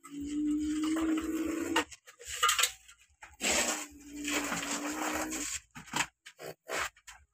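A child making a buzzing engine noise with the mouth, twice, each about two seconds long, while pushing a toy dump truck through sand. Short scrapes and knocks of plastic on sand fall in between.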